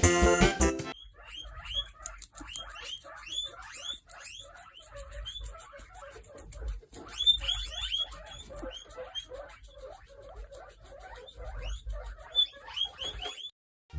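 A small animal squeaking: many short, rising high-pitched squeaks in quick succession, on and off for about twelve seconds.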